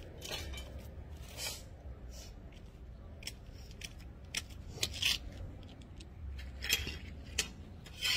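Metal hand garden tools clinking and clanking as they are picked through and handled, in an irregular run of short sharp clicks.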